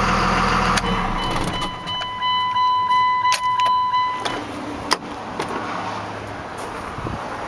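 1998 Dodge Ram 2500's 5.9-litre Cummins inline-six turbo diesel being shut off, its idle dying away in the first second or so. A steady warning chime tone then sounds for about three seconds, with a few sharp clicks and rattles.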